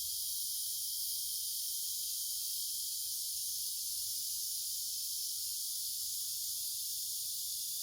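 A steady high-pitched hiss that does not change.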